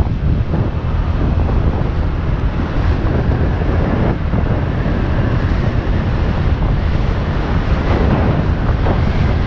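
Wind rushing and buffeting over the microphone on a moving motorcycle at road speed, a steady loud roar with the bike's engine and road noise underneath.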